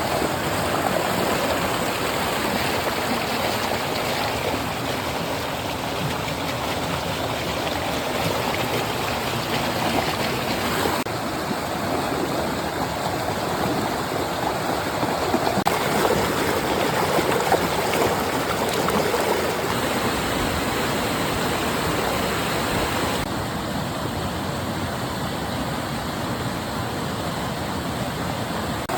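Flowing water of a stream, a steady rush. Its brightness shifts abruptly a few times, about a third of the way in, just past halfway and again later.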